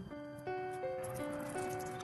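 Background music of held, steady notes, with a faint rustling patter about a second in.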